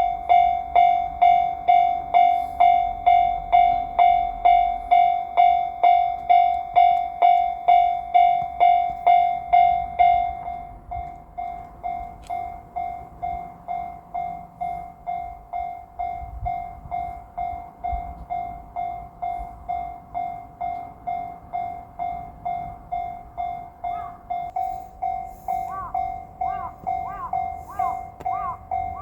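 Japanese level crossing's electronic warning bell ringing in a steady rhythm, about two strokes a second. About ten seconds in it becomes noticeably quieter and duller. Near the end a faint rising tone repeats with each stroke.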